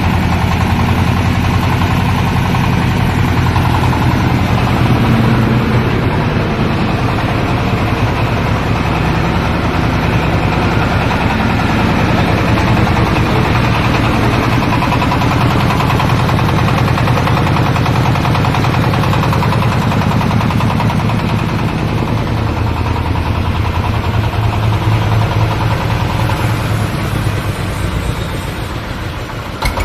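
Engine-driven corn sheller for unhusked cobs running steadily, a constant engine drone under a dense mechanical clatter; the level eases slightly near the end.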